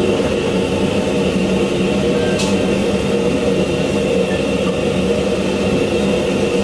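Steady loud noise of a commercial kitchen's gas stove burners and extraction running, with a single short click about two and a half seconds in.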